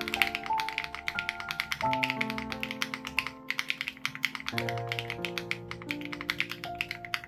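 Fast typing on an SPM AL87B mechanical keyboard with BSUN Raw switches and its sound-dampening foam removed: a dense stream of key clicks. Background music with held notes plays underneath.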